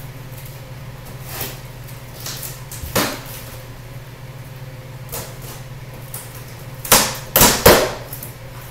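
Cardboard shipping box and its packaging being handled and cut open with scissors: scattered rustles and scrapes, a sharper one about three seconds in, and three louder scrapes in quick succession near the end.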